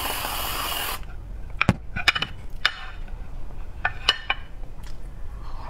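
Aerosol whipped-cream can hissing as cream is sprayed into a glass bowl, cutting off about a second in. Then a series of light clicks and scrapes against the glass bowl as the cream is scooped.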